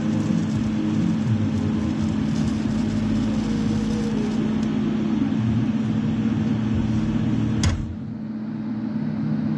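TIG welding arc fusing the seams of a stacked steel billet without filler, a steady buzzing hiss over a low hum. About three-quarters of the way through, the arc cuts off with a click, and only a quieter low hum carries on.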